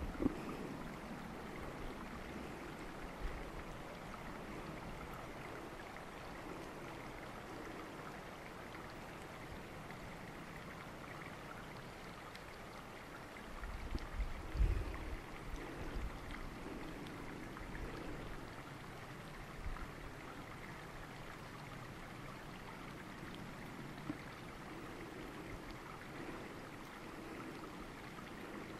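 Steady rush of flowing water, with a few low thumps about halfway through.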